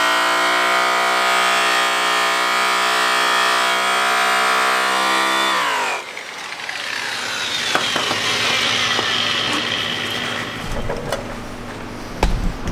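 High-speed electric angle-grinder buffer with a cotton buffing wheel running steadily against an aluminium truck wheel rim, colouring (final polishing) the outer lip. About six seconds in it is switched off and its pitch drops quickly as it winds down, followed by a quieter stretch with a few clicks and thumps near the end.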